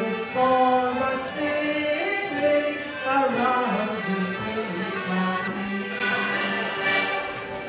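A woman singing a traditional song through a microphone and PA, backed by a group of button accordions playing along.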